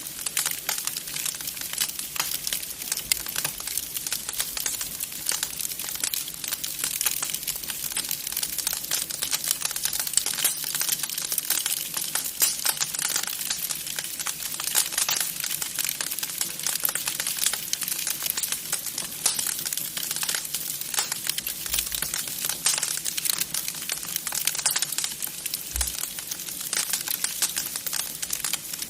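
Wood fire crackling in a fireplace: a dense, irregular run of small pops and snaps over a continuous hiss.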